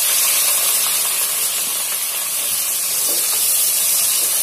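Sliced onions sizzling in hot oil in a non-stick pot, a loud, steady hiss right after they hit the oil, with a spatula stirring them near the end.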